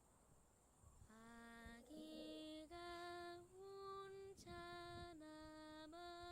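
A short, soft tune of about seven steady held notes that step up and down in pitch, like a lullaby. It starts about a second in and runs on past the end.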